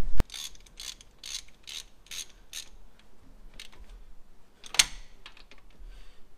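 Ratchet spanner tightening the bolt that holds a new earth cable's crimped eye terminal to the tractor chassis: a sharp knock, then six short bursts of ratchet clicking about half a second apart, then a few lighter ticks and one sharper click.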